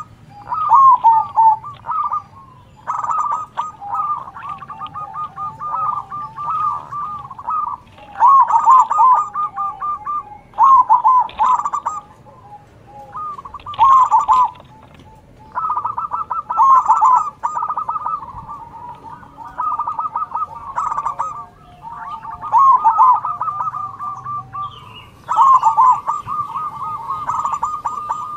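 Zebra doves singing their full cooing song (manggung), several birds answering one another. Each phrase is a quick run of repeated coos and trills, with short pauses between phrases and some phrases overlapping.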